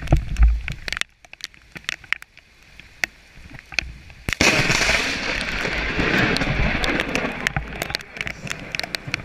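Lightning striking very close by: a sudden sharp crack about four seconds in, then loud thunder for about four seconds that fades away. Scattered clicks and knocks come before it, with a low thump at the start.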